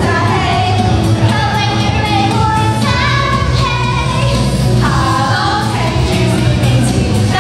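Girls singing a pop song into handheld microphones over an amplified backing track with a steady bass line.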